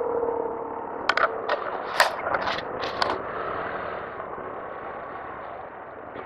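Small scooter riding slowly with its engine and wind noise, broken by a quick run of sharp clicks and clacks between about one and three seconds in.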